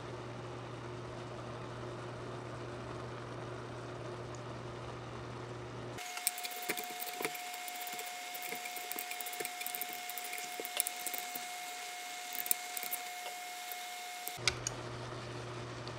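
Steady hum and hiss from the pot of instant noodles simmering on the burner. About six seconds in it changes to chopsticks stirring and lifting the noodles in the pot, with quick light clicks against the pan over a steady whine, the audio sped up to triple speed.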